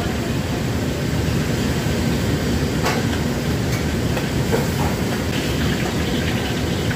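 Steady roar of commercial wok burners and the kitchen extraction hood, with a couple of sharp metal clinks about three seconds in.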